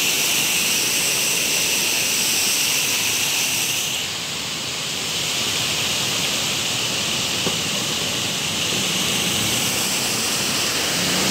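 Shallow mountain stream rushing and splashing over rocks in a steady torrent. A motorcycle engine comes in faintly near the end.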